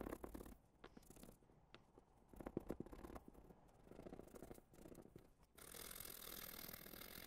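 Scrubbing and scraping paint off a small die-cast metal toy part, in short scratchy strokes. About five and a half seconds in it turns to a steady brisk scrubbing.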